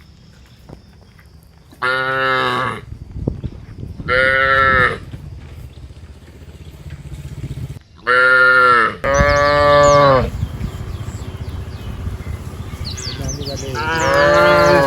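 Cattle mooing: five separate calls of about a second each, with pauses between them. Faint birds chirp in the background in the second half.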